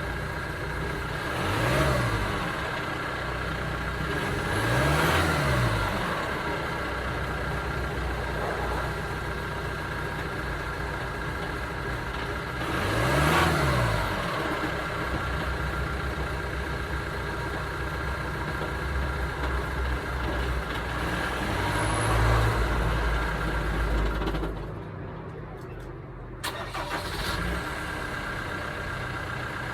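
Ford Transit van's diesel engine idling, revved briefly four times, each rev rising and falling back to idle within about a second and a half.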